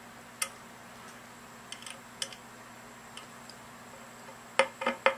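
Small metal clicks and ticks from handling the Columbia phonograph soundbox: a few separate clicks, then near the end a quick even run of ticks, about four a second.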